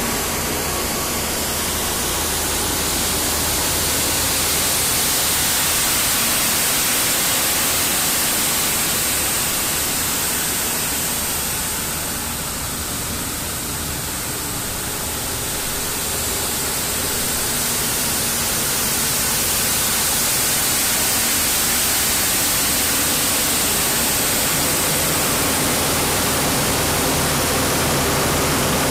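Schwarze A7 Tornado regenerative-air street sweeper running with its blower engaged: a loud, steady rush of air. The auxiliary engine's low hum shows under it near the start and near the end, and the whole sound dips slightly in the middle.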